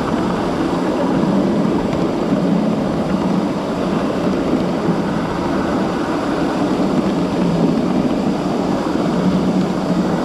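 Steady rumble of a 7.5-inch gauge miniature live-steam train running along its track, with no breaks or distinct beats.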